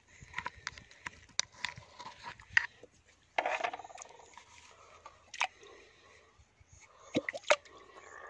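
Small plastic bottle handled and tapped while its waste decomposer culture is emptied out: irregular sharp clicks and taps, a short scraping rustle a little over three seconds in, and a few more clicks near the end.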